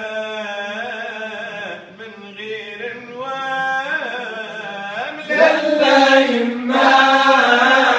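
A group of men singing a nasheed a cappella, with a low steady note held beneath the melody. About five seconds in the singing grows fuller and louder.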